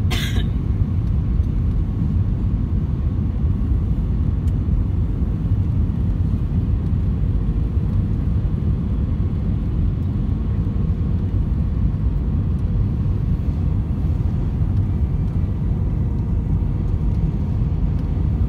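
Airliner cabin noise on the descent: a steady low rumble of engines and airflow, with a faint even hum above it.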